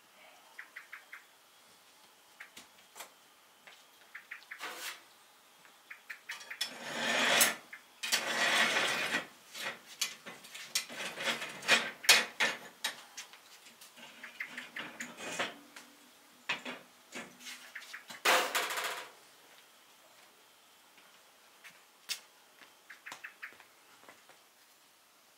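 Metal clinks, taps and scrapes from a long metal rod being worked at the mouth of a tandoor, with two longer grating scrapes, one of about two seconds near a third of the way in and a shorter one about three-quarters through.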